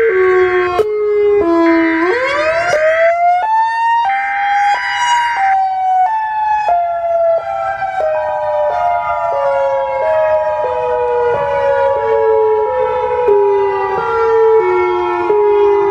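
A siren with a pitch that steps downward in small stair-steps about twice a second and sweeps back up twice. Harsh hiss comes in over it during the first few seconds, and a steady higher tone joins it about halfway through.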